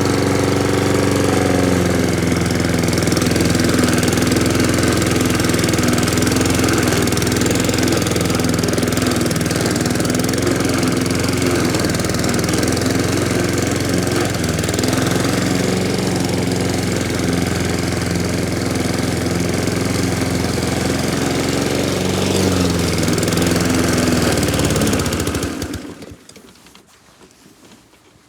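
Gasoline lawn mower engine running steadily at mowing speed, then winding down and stopping about 25 seconds in.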